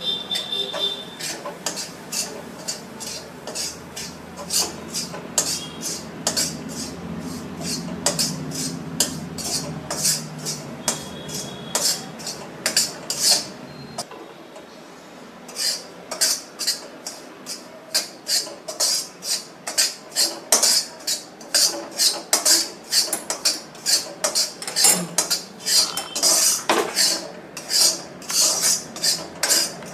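Flat metal spatula scraping and stirring a crumbly flour-and-ghee mixture in an iron kadhai, in quick repeated strokes of about three a second. The strokes grow louder and more regular about halfway through.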